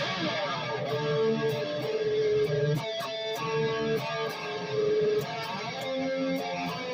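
Dean Switchblade ML electric guitar being played, a string of ringing notes that change every half second or so.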